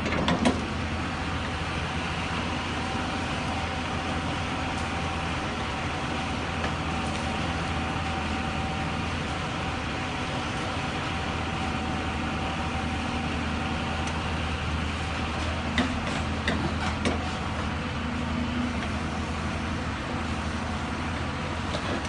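Diesel engine of a Hyundai crawler excavator rigged as a forestry log loader, running steadily under hydraulic load with a steady high whine over it while the boom and log grapple move. A few short knocks come about two thirds of the way through.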